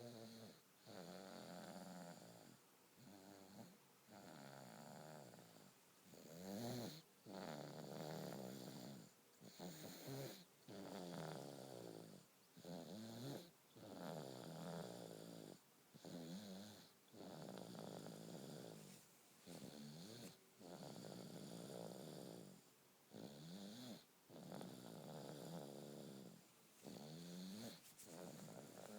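A sleeping baby snoring quietly and steadily: a quick, regular rasping snore about every second and a half.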